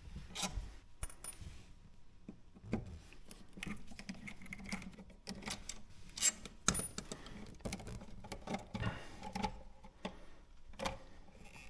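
Scattered light metallic clicks and taps as a screwdriver backs out a wall outlet's long mounting screws and the outlet is handled in its box.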